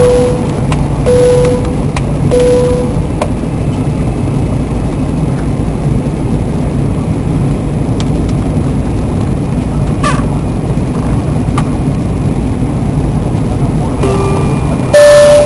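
Jet airliner cabin noise in flight: a steady low rush of engines and airflow. A few short humming tones sound in the first three seconds, and a brief louder sound comes near the end.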